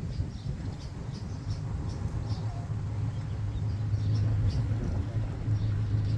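A steady low rumble that grows a little louder about four seconds in, with short high chirps scattered over it.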